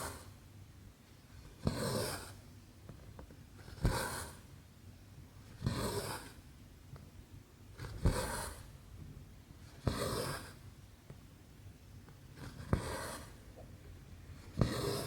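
Cross-stitch needle punching through 11-count canvas and the thread drawn through after it. Each stitch is a sharp pop followed by a short swish, repeating about every two seconds, seven times.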